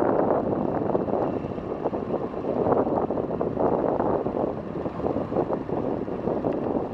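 Steady roar of rushing water at Webuye Falls on the Nzoia River, a dense rushing noise that swells and eases slightly.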